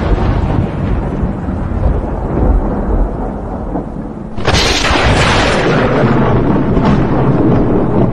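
Thunder rumbling over a steady hiss of rain, with a new loud crash of thunder about four and a half seconds in.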